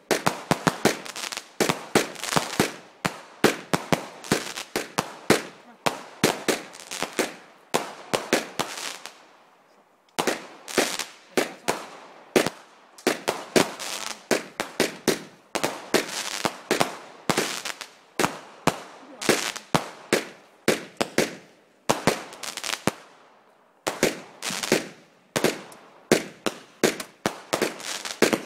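Multi-shot firework barrage cake firing: a rapid string of sharp bangs, several a second, broken by two brief pauses.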